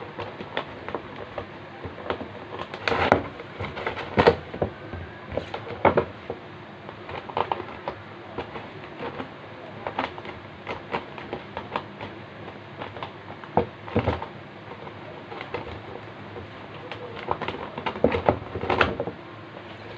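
Clear plastic packaging rustling and crinkling in irregular bursts as it is handled and unfolded, over a steady background hiss.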